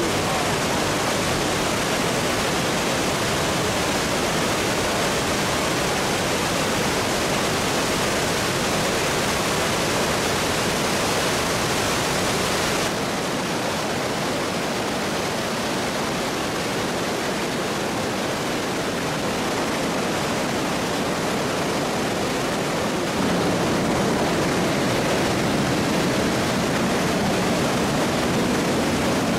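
Waterfall cascades of the Krka River rushing, a loud, even water noise. It turns abruptly duller about a third of the way through and louder again later on.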